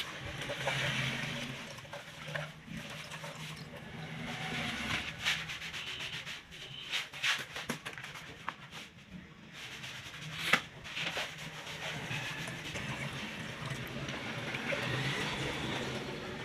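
Abrasive hand rubbing on a wooden furniture surface: a scratchy rubbing noise that swells and fades stroke by stroke, with a few sharp clicks, the loudest about ten seconds in.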